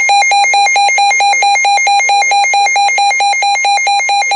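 Weather radio receiver's alert alarm: a loud, buzzy electronic beeping pulsing rapidly and evenly, about seven beeps a second, sounding for a tornado warning.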